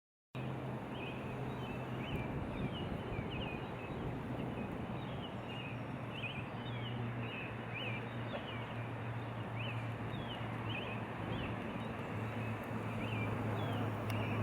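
Small birds chirping in short falling notes repeated many times, over a steady background noise and a low hum. The sound cuts in abruptly just after the start.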